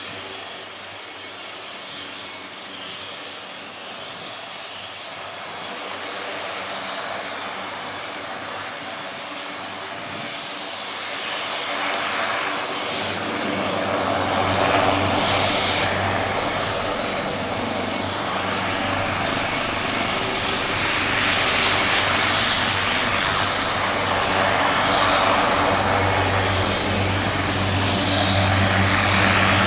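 A turbine helicopter running, its engine and rotor growing steadily louder, with a deep steady rotor throb coming in about halfway through and staying to the end.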